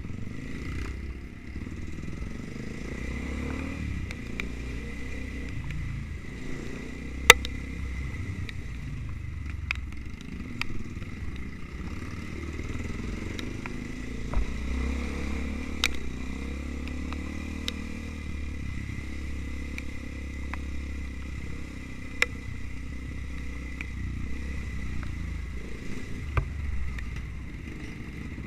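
Trail dirt bike engine running at low, steady revs while riding a rough muddy track, with scattered sharp knocks and clatter from the bike over the ground; the loudest knock comes about a third of the way through.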